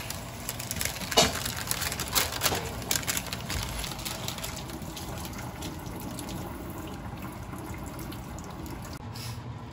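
Baking paper crinkling and rustling as it is peeled back from fish baked in a metal pan, with a few sharp crackles in the first seconds. A steady rushing noise runs underneath throughout.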